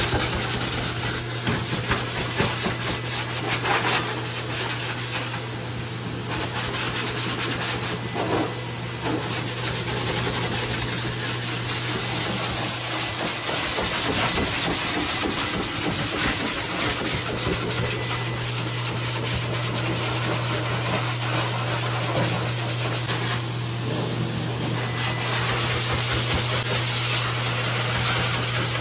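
Pet blow dryer at a dog wash station running steadily through its hose, blowing air into a wet dog's coat: a constant low hum under a rushing hiss of air, with a faint steady high whine.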